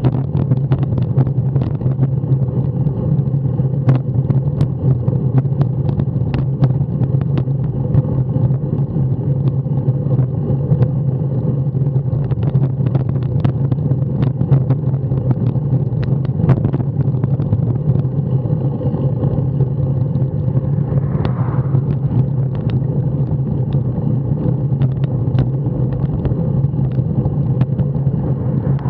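Steady wind rumble and road vibration picked up by a bicycle-mounted camera riding at about 12 mph, with frequent small knocks from the road surface.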